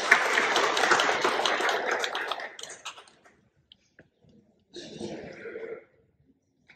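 Audience clapping, many hands at once, fading out about three seconds in. A shorter, quieter sound follows about five seconds in.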